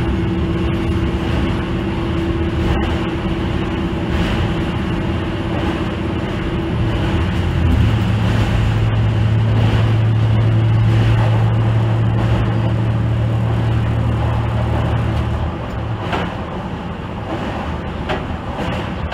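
Ibara Railway diesel railcar running along the line, heard from inside at the front: a steady drone of engine and wheels on rail. A strong low engine hum comes in about eight seconds in and drops away at about fifteen seconds.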